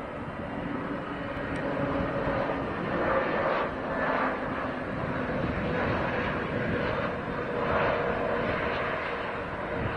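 Jet engines of an Airbus A320neo airliner landing, a steady rushing noise with a faint low hum, swelling and easing in waves.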